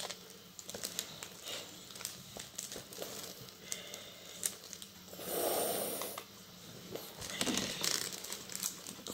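Light crinkling and crackling of the plastic film on a diamond-painting canvas as it is held and pressed flat by hand, with a louder soft rush of noise about five seconds in.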